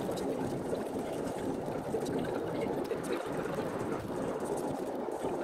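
Steady road and engine noise heard inside a moving car's cabin: an even rushing hum with no distinct events.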